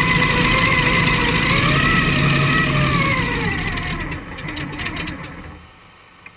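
Vintage Oh Boy Oberto hydroplane's engine running hard under an onboard rush of wind and water, then falling in pitch about three seconds in as the throttle comes off. The sound fades with a quick patter of crackles, and is low by the end with one last click.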